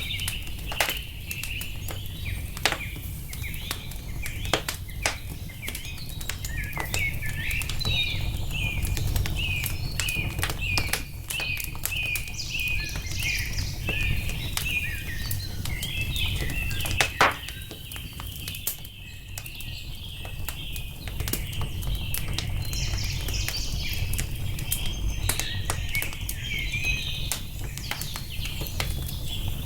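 Wood fire crackling and popping under a steady low rumble, with a few sharper pops about 3, 4.5 and 17 seconds in. Birds chirp in quick repeated notes over it, easing off for a few seconds around the middle.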